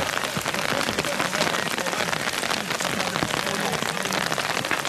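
Steady rain pattering, a dense, even patter of many small drops.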